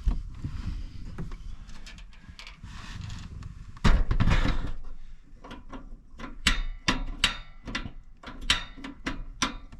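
Cooking gear being handled and set in place for a small propane grill. There is a heavy knock about four seconds in, then a quick run of sharp knocks and clacks.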